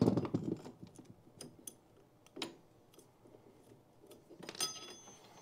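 Metal parts of an old Bussoz foosball rod clicking and knocking as the spring-loaded rod end is worked out of the table's side wall. A dull knock comes at the start, scattered sharp clicks follow, and a metal part gives a ringing clink near the end.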